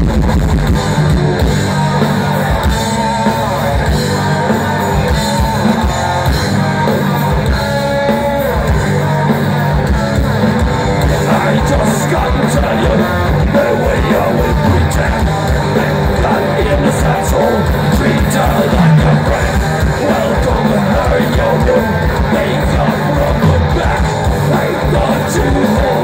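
Live heavy metal band playing loud: distorted electric guitars, bass and pounding drums, with a singer's vocals over them.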